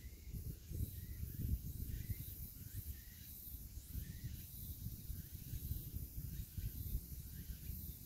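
Wind buffeting the microphone in low, uneven gusts, over a faint steady fizzing and crackling from the exposed tidal mudflat: the popping of small air bubbles around crab burrows.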